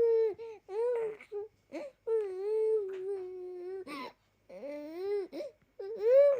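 Baby crying in a run of high-pitched wails with short breaks between them; the longest wail lasts nearly two seconds.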